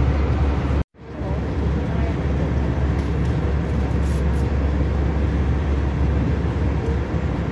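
Steady cabin noise of an Airbus A319 in flight, heard from a window seat beside the engine: a deep engine drone under an airflow hiss. The noise cuts out for a split second about a second in, then resumes unchanged.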